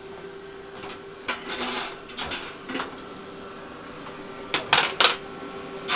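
Tools clinking and knocking a few times, with a steady hum beneath; the sharpest knocks come near the end.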